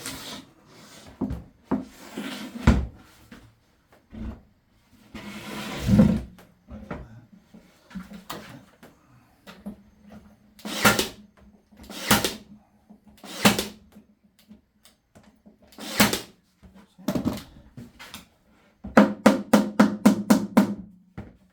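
Small wooden corner brackets being nailed into a plywood nest box: sharp knocks on wood, single ones every second or two, then a quick run of about eight near the end.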